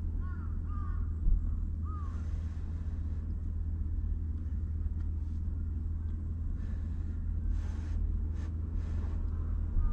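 Steady low rumble, with a bird calling a few times in the first two seconds. Short airy slurping of instant ramen noodles comes in the second half.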